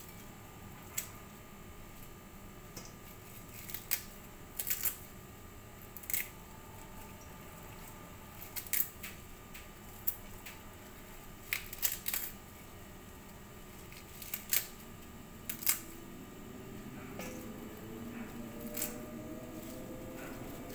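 Fresh curly kale being torn apart by hand: about a dozen sharp, crisp snaps and crackles at irregular intervals as leaves are ripped from the stems. A faint tone slowly rising in pitch comes in near the end.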